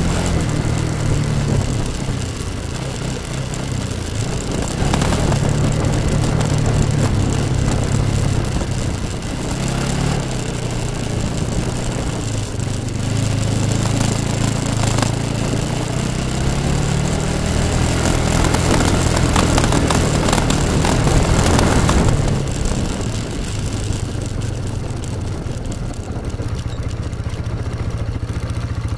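Yamaha Bruin 250 ATV's single-cylinder four-stroke engine under way. The revs rise and fall with the throttle several times, then ease to a lower, steadier run over the last several seconds.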